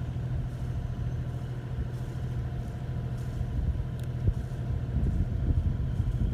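Sailing yacht's inboard engine running at a steady speed, a constant low hum, as the boat motors along at about five and a half knots. A small click comes about four seconds in.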